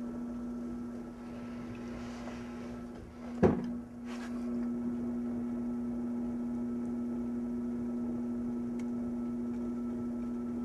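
Electric potter's wheel motor humming steadily at a constant pitch as the wheel spins, with one sharp click about three and a half seconds in.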